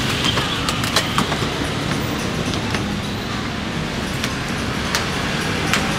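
Steady low rumble of passing traffic, with a few sharp clicks about a second in and again near the end.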